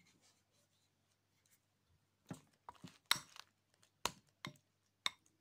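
Thin lumpia wrapper sheets being peeled apart and handled by hand: a quiet start, then a handful of short, crisp rustles and taps in the second half.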